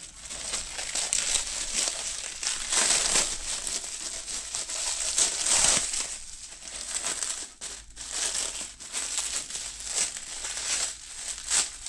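Clear plastic packaging crinkling and rustling unevenly as a part is pulled out of it by hand.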